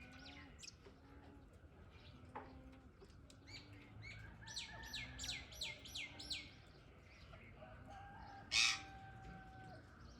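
Ringneck parrots calling: a quick run of about six falling chirps in the middle, then one loud, harsh screech near the end. A soft, low note repeats in the background.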